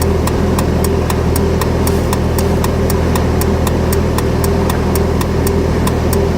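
A motor running steadily with a low drone, over a regular rapid ticking of about four clicks a second.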